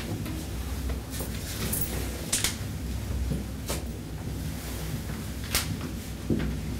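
Steady low hum of the room, with a few scattered clicks and knocks a second or two apart as people move about and handle things at the altar.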